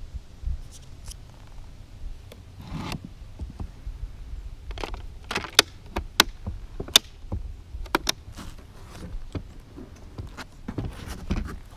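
Scattered sharp clicks and taps of fingers touching and brushing the glass-fronted wooden display cases, thickest from about five to eight seconds in, with a low rumble underneath.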